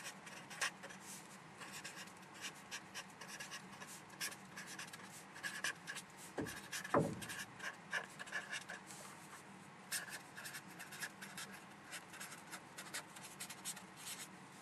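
Pen scratching on paper as words are handwritten, in many short quick strokes. Two low thumps about halfway through.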